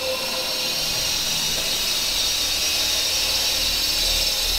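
Small radio-controlled coaxial helicopter (T-Series T-23) in flight, its electric rotor motors and twin rotors giving a steady high whine.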